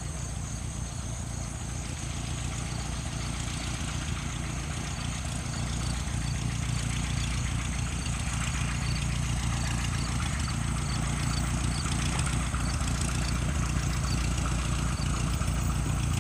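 A Cessna 172 Skyhawk's four-cylinder piston engine running at taxi power, a steady propeller-driven drone that grows louder as the plane comes closer.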